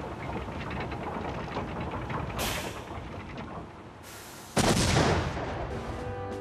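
A sudden loud explosion boom about four and a half seconds in, like an artillery shell bursting, with a low rumble trailing off. Before it, a steady crackle and a shorter sharp burst about two and a half seconds in.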